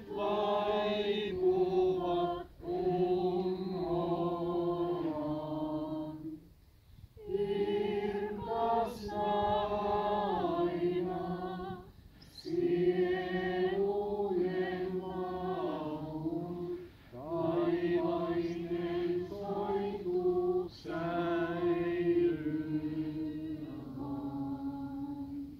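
A group of mourners singing a hymn together, unaccompanied, in slow held phrases with short breaks between the lines.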